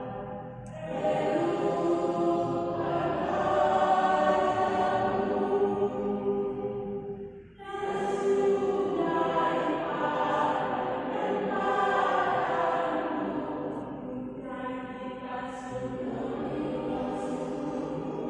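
Choir singing sustained chords in harmony, the phrases breaking briefly about a second in, at around seven and a half seconds and near fourteen seconds.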